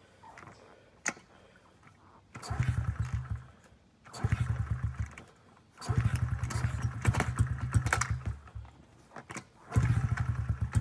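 Honda CRF50F's small single-cylinder four-stroke engine being kick-started, turning over in four separate attempts of a second or two each, the third one longest, without settling into a run: an engine that hasn't been started in two years.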